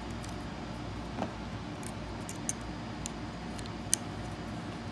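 Small clicks and taps of a hex key turning long screws into a scope mount, a few scattered ticks with the sharpest one near the end, over a steady low background hum.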